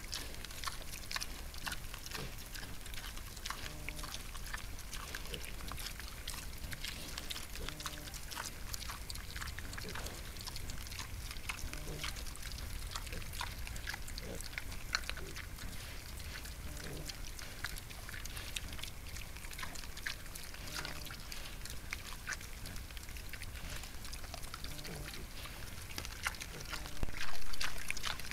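Wild boar sow and striped piglets feeding: constant crackling clicks of rooting and chewing in the ground, with short low grunts about every four seconds. A brief louder noise comes near the end.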